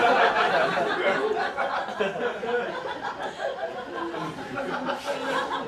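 Audience laughing, loud at first and dying away gradually.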